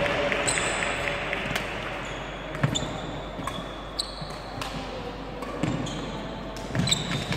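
Badminton rally: a shuttlecock struck by rackets several times, with sports shoes squeaking on the wooden court floor, in a large sports hall.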